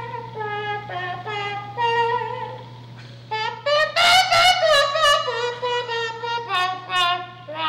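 Blues harmonica played into cupped hands: a phrase of held notes with bends and wavers, loudest about four seconds in, over a steady low hum.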